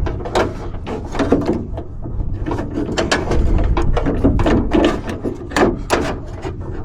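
Plastic rod retaining clips being worked into a Jeep YJ door latch by hand: irregular small clicks and knocks of plastic and metal parts.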